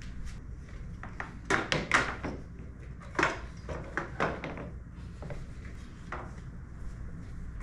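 Metal-framed folding chairs being folded and handled: a run of clacks and knocks, bunched about one and a half to two and a half seconds in and again around three to four and a half seconds, with one more near six seconds.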